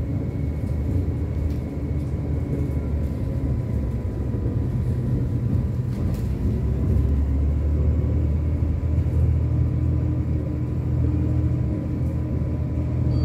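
A city bus in motion, heard from inside the cabin: a steady low rumble of engine and road noise.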